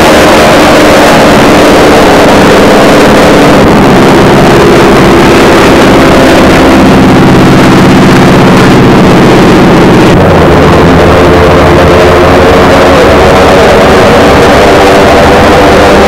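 Piston-engined WWII fighter aircraft racing past at full power, a loud, dense propeller and engine drone. Its pitch drops lower about six and ten seconds in as the planes go by.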